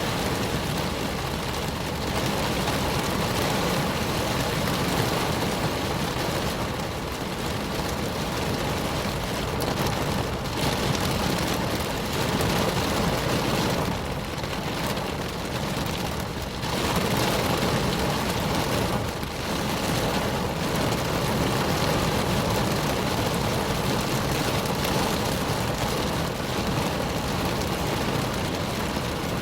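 Rain falling on a car, heard from inside the cabin: a steady, dense patter of drops on the roof and glass.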